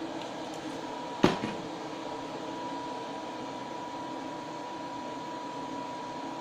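Butane blowtorch flame running steadily, a hiss with a faint thin whistle, as it re-melts the surface of a freshly poured solder ingot. A single sharp click about a second in.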